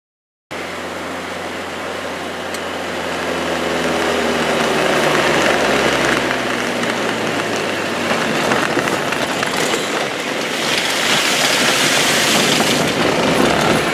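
A vehicle's engine and road noise from inside the cab as it drives: the engine hum drops a little in pitch as it slows, then a louder rushing noise builds as the tyres roll over mud and gravel on a washed-out stretch of road.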